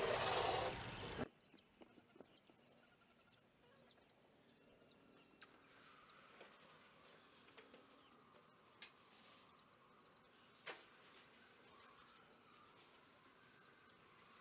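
Loud rushing noise that cuts off abruptly about a second in, leaving faint outdoor ambience of scattered bird chirps and insects, with two sharp ticks in the middle.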